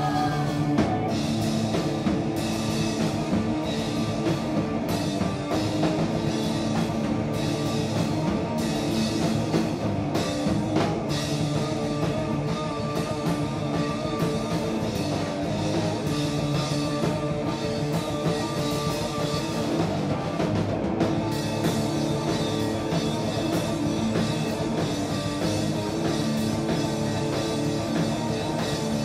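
Live rock band playing an instrumental stretch: heavily distorted electric guitar over a drum kit played hard, with frequent cymbal crashes and no vocals.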